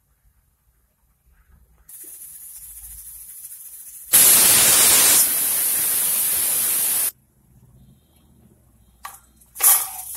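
Stainless-steel pressure cooker on a gas burner letting off steam through its weight valve, giving a cooker 'whistle': a softer hiss builds, then a loud, steady hiss for about three seconds that cuts off suddenly. The whistle is the sign that pressure has built up inside. A few short bursts of sound follow near the end.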